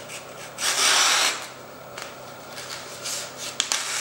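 A knife blade slicing through a sheet of paper, testing the factory edge's sharpness: a short rasping cut about half a second in, and a second, longer cut starting near the end.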